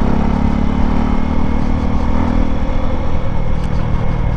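Motorcycle engine running steadily while riding along, with an even hum and no marked revving.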